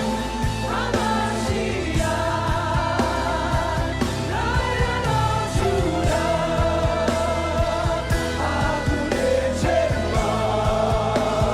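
Live gospel worship music: voices singing long, wavering notes over a band with a steady beat.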